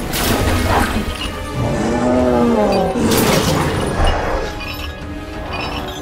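Action-film fight soundtrack: music mixed with crashing, shattering impacts, sharpest near the start and again around three seconds in, with a falling pitched tone between them.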